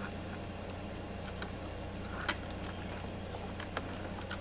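Scattered light clicks and ticks of copper jumper wires being twisted together and pushed into a relay module's screw terminal block, over a steady low hum.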